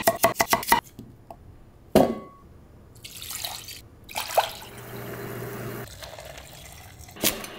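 A quick run of knife strokes cutting through turnip onto a wooden cutting board, and a single knock about two seconds in. Then water poured from a plastic container into a stainless steel pot for a few seconds, followed by a quieter pour of liquid into a plastic container.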